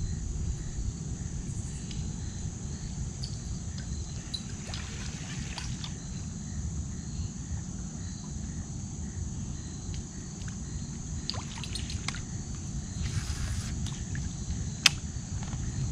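Shallow water trickling and sloshing close by, over a steady high-pitched drone, with a few faint clicks near the end.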